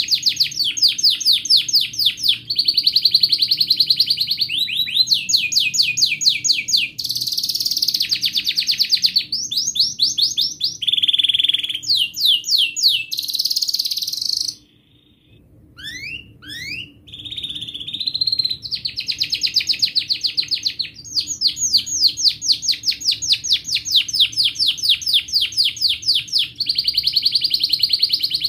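Domestic canary singing a long, continuous song of rapid trills and rolls. It pauses for about a second midway, then comes back in with a few rising notes and carries on trilling.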